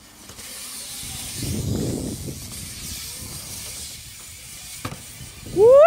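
BMX bike tyres rolling over a concrete skatepark, with a louder rumble about a second and a half in and a sharp knock near the end. Then a loud rising whoop from a man's voice.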